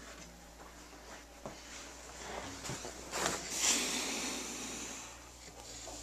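A man's long breathy sigh close to the camera microphone, loudest a little over halfway through, with a few light clicks and rustles of the handheld camera being moved.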